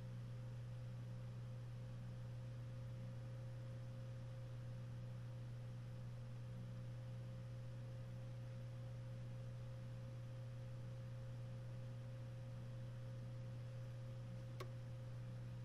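Steady low hum with a fainter, higher steady tone above it and a light background hiss, unchanging throughout, with a single faint click near the end.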